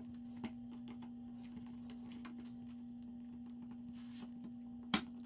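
Faint clicks and scrapes of a screwdriver working on a circuit board in a plastic case, over a steady low hum. About five seconds in comes one sharp, loud snap: the microchip scanner's circuit board snapping into place in its plastic housing with its ports now aligned.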